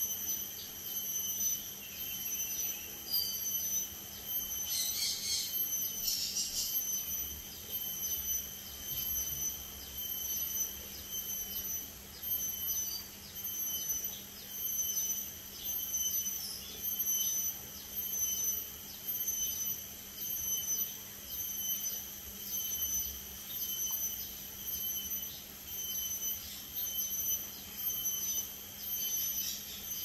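Steady high-pitched insect drone, pulsing and swelling about every second and a half, with a few brief chirps about five to seven seconds in.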